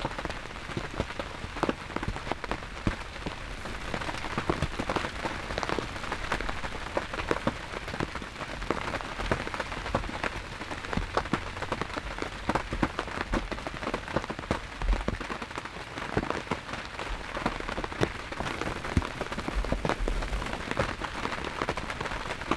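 Steady rain pattering, heard from inside a hunting ground blind: many separate drops tick over a constant hiss.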